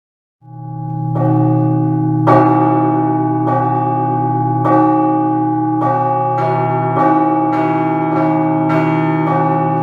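Russian Orthodox church bells rung in an improvised festive peal: a deep bell's hum swells in about half a second in, with strokes on smaller bells about once a second that quicken to about twice a second in the second half.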